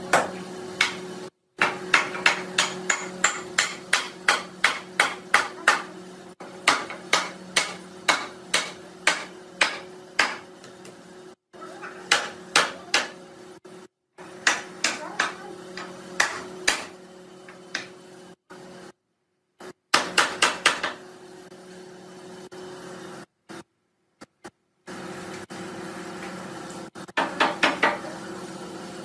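Hammer blows on a mulberry-wood door frame as its joints are knocked together during assembly, coming in quick runs of about three to four strikes a second with several short breaks. A steady low hum runs underneath.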